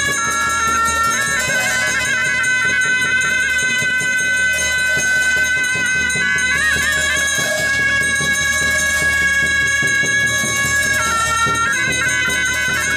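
Tibetan Buddhist ritual music: a pair of gyaling, the double-reed shawms of the monastery, playing long held notes in unison with quick wavering ornaments, accompanied by hand cymbals.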